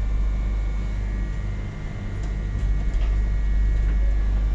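Inside a Trenitalia regional train carriage: steady running noise, a low rumble with faint steady whining tones above it.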